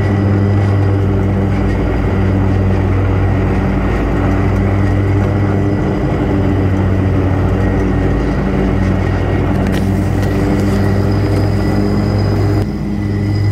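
Riding lawn mower engine running steadily at working speed, with a brief dip in level about a second before the end.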